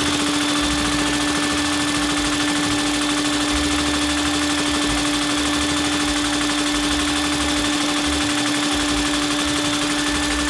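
A LEGO inline-two vacuum engine running, not very fast, on the suction of a vacuum cleaner hose. It sounds as a steady hum with hiss and a fluttering low rumble.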